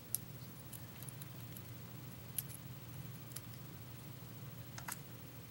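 Tweezers and small lock pins and springs clicking faintly as they are picked out of the lock's chambers, a handful of sharp ticks spread over a few seconds, over a low steady hum.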